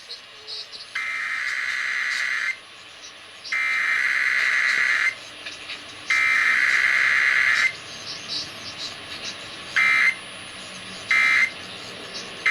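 Emergency Alert System digital data bursts: three long, harsh header bursts of about a second and a half each, a second apart, then three short end-of-message bursts near the end. There is no attention tone between them, as in a Required Weekly Test.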